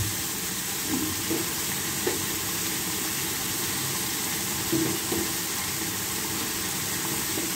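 Mutton karahi gravy sizzling and bubbling hard in an uncoated karahi on high flame: a steady frying hiss with a few soft pops. It is the last stage of the bhuna, as the oil begins to separate and rise to the top.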